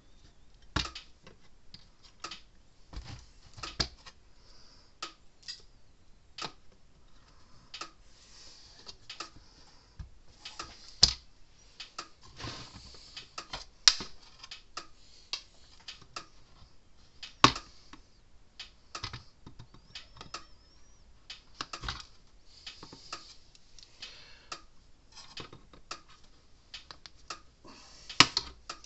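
Irregular clicks and taps of small metal and plastic parts being handled and fitted by hand, with a few sharper knocks among them, loudest about 11, 14, 17 and 28 seconds in.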